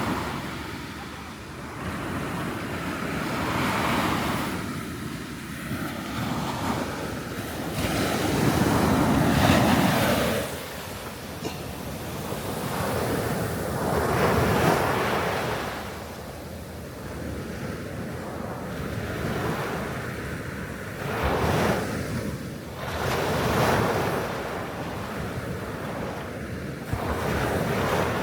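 Sea waves breaking and washing on a sandy beach, rising and falling in swells every few seconds, with wind buffeting the microphone.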